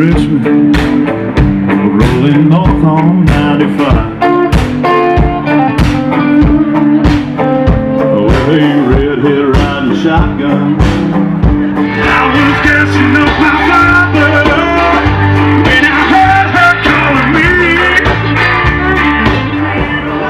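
Blues-rock music with guitar and a steady drum beat; a singing voice comes in about twelve seconds in.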